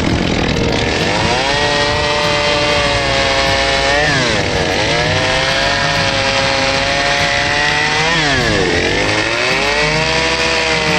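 Power saw cutting through pallet 2x4s. Its motor holds a high, steady pitch, drops sharply twice (about four seconds in and again near eight seconds) as the blade bogs down in the wood, then climbs back.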